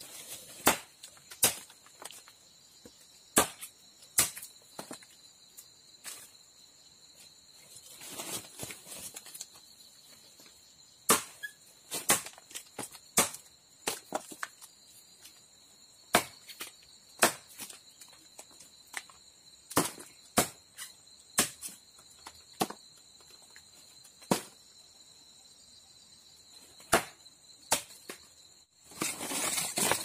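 A machete blade chopping into the bark of a bendo tree trunk to open cuts for tapping its sap: a long series of sharp, irregular strikes, often about a second apart. A steady high insect drone runs underneath, and a burst of rustling comes near the end.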